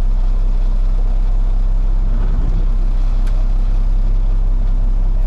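Freightliner truck's diesel engine running with a steady low drone.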